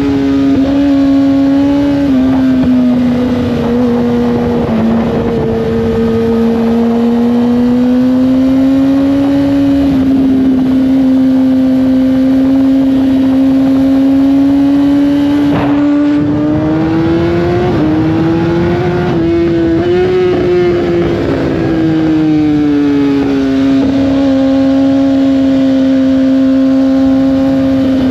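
Litre-class sport bike's inline-four engine running at steady cruising revs under wind rush. The engine pitch climbs a little about two-thirds of the way through and settles back. A single sharp click comes a little past halfway.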